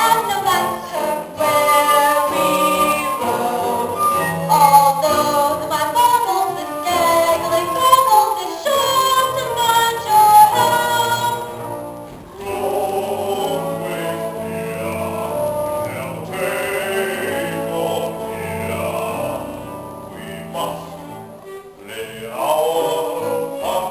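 Singers performing a musical-theatre number with instrumental accompaniment. About halfway through, the music drops to a softer, thinner passage.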